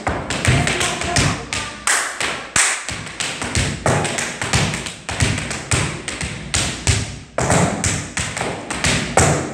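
Tap shoes striking the floor as a tap dancer works through a routine at slow tempo: an uneven, rhythmic run of crisp taps mixed with heavier heel thuds, stopping at the end.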